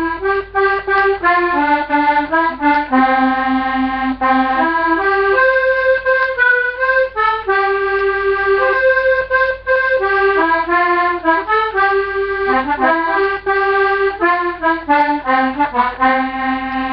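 Hohner three-voice B/C diatonic button accordion (melodeon) playing a tune, a run of sustained notes stepping from one to the next with no singing over it.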